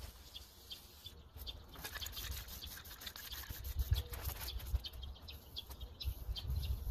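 Aerosol spray-paint can hissing in many short bursts, with a low rumble underneath.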